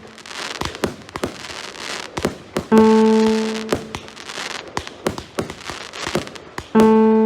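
A 200-shot 0.8-inch firework cake firing, with irregular bangs and crackles throughout. A loud, steady pitched note comes in suddenly twice, about four seconds apart, and fades over about a second each time.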